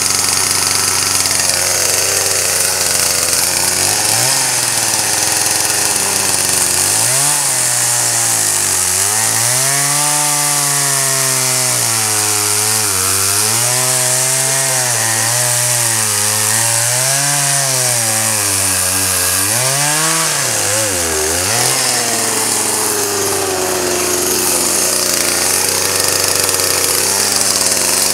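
Chainsaw cutting through a wooden pole. Through the middle of the cut its motor pitch swings up and down over and over as the chain bites into the wood and frees up; it runs steadier near the start and end, with a loud hiss from the chain throughout.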